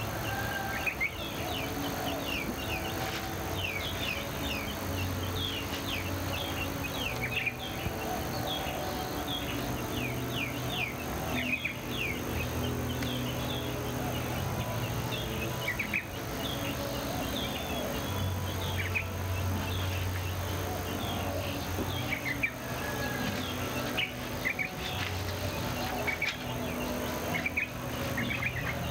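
Many small birds chirping and twittering in quick, falling notes, over steady low droning tones that swell and fade every few seconds.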